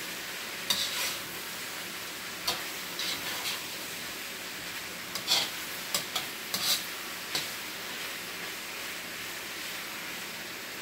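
Beef and baby corn sizzling steadily in a hot wok, with a metal spatula scraping and tapping against the pan about ten times as the food is stirred.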